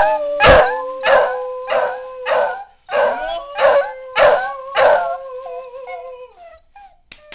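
Dog howling in long, held, wavering notes, over strong rhythmic pulses that come about every two-thirds of a second. The pulses stop about five seconds in, and the howl wavers on alone and fades out near the end.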